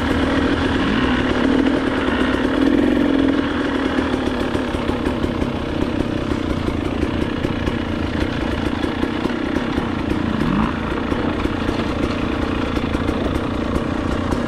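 Dirt bike engine running at low, steady revs on an easy ride, heard close up from the bike itself, with a child's mini dirt bike running just ahead.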